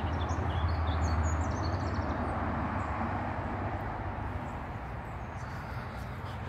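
Low rumble of a passing vehicle slowly fading away, with small birds chirping over it in the first couple of seconds.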